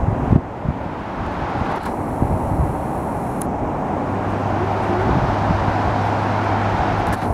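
Outdoor road traffic from the highway below, a steady wash of passing cars, with wind thumping on the microphone near the start. A low steady hum joins about four seconds in and runs for a few seconds.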